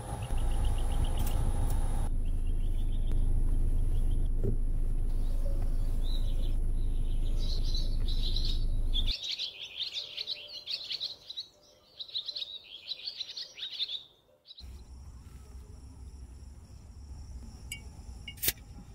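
A steady low rumble, typical of wind on the microphone, for about the first half. Then birds chirping in a quick, dense twitter for about five seconds. Near the end comes the steady high drone of crickets, with one sharp click.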